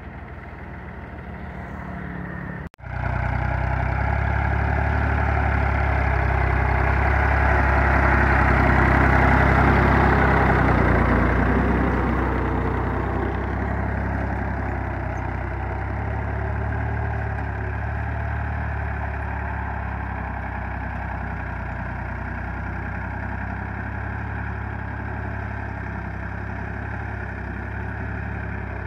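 Ford 3000 tractor's three-cylinder engine running steadily while pulling a spring-tine cultivator through soil. The sound cuts out for an instant about three seconds in, then comes back louder, swells for a few seconds near the middle and eases to a steady level.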